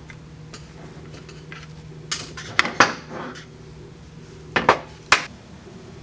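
Steel and cast-iron parts of a home-made milling-machine power feed clinking and clacking as they are handled and fitted together. There are a few sharp metallic clacks about two to three seconds in and again near five seconds, over a faint steady low hum.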